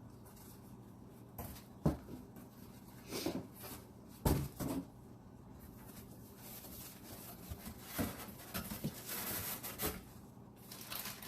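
Groceries being unpacked from a delivery box by hand: a couple of sharp knocks as items are set down, short rustles, and a longer stretch of crinkling packaging near the end.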